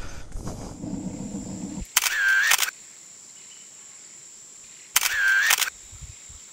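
Camera shutter sound effect, played twice about three seconds apart, each a short click-and-whirr. Before it, a rushing noise cuts off about two seconds in, and a faint steady high whine runs underneath.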